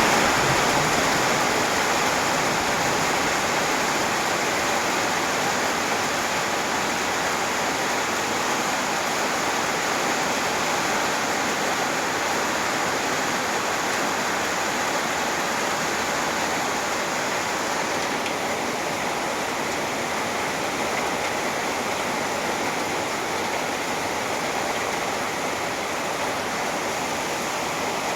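Steady rain falling, an even wash of noise that eases off very slightly near the end.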